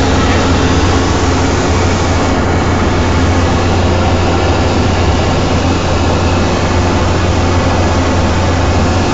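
Cessna Grand Caravan's single Pratt & Whitney PT6A turboprop engine and propeller running steadily, heard from inside the cockpit as a loud, even noise over a strong low hum.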